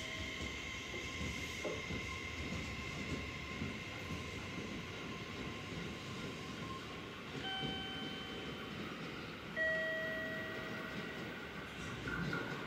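JR Kyushu 811 series electric commuter train running out along the platform track, a steady rumble of wheels on rail with a faint steady whine. Two short steady tones, about a second each, come near the middle and about ten seconds in, the second the loudest moment.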